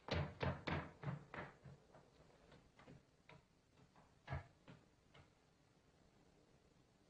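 A quick run of sharp knocks, about five in the first second and a half, then fainter scattered ones, with one more strong knock about four seconds in.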